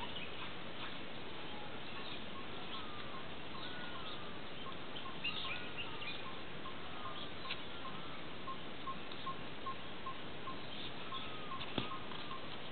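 Birds calling in the forest: a short ringing note repeated about twice a second, with other chirps and whistles over it and a steady hiss underneath. A single sharp click sounds near the end.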